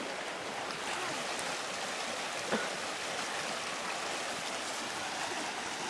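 Steady rushing of a small creek flowing over rocks, with one light knock about two and a half seconds in.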